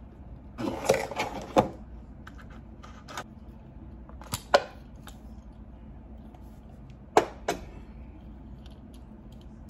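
Scattered knocks and clicks of objects being handled: a short cluster about a second in, then a pair of sharp clicks around the middle and another pair later.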